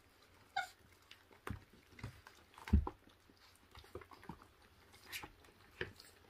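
26-day-old puppies chewing and tearing at raw meat and rib bones, with scattered small clicks and knocks. A brief rising squeak comes about half a second in, and a low thump near the middle.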